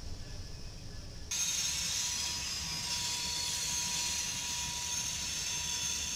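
Freight cars rolling past on the rails, a steady low rumble of wheels on track. About a second in it switches abruptly to a louder, hissier roll of covered hopper cars, with a thin steady high tone running under it.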